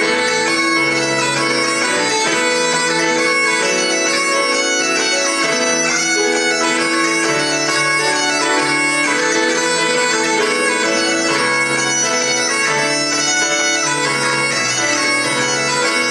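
Bagpipes playing a tune over their steady drone, with keyboard accompaniment.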